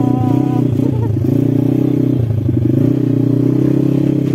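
ATV engine running steadily, a constant low drone.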